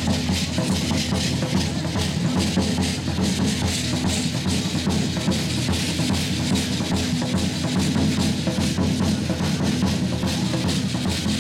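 Large double-headed drum beaten with a stick in a steady, driving dance rhythm, with the dancers' hand rattles shaking along to the beat.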